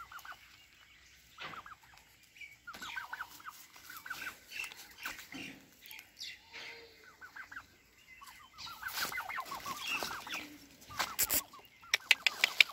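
Domestic turkeys calling in short runs of quick clucking notes, a run every couple of seconds. A rapid series of sharp clicks begins near the end.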